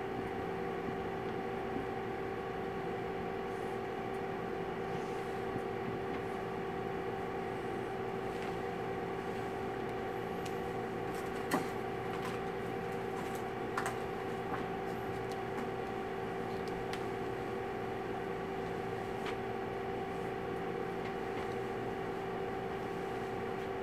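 Steady room hum with two constant pitched tones, like equipment or ventilation running, with a faint click twice about halfway through.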